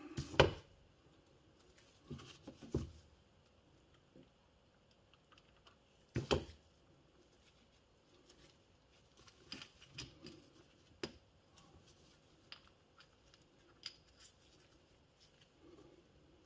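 Scattered light clicks and taps of small metal e-bike motor parts, a gear wheel and needle roller bearing, handled by hand while being greased and fitted, with a few sharper knocks near the start, about six seconds in and about eleven seconds in.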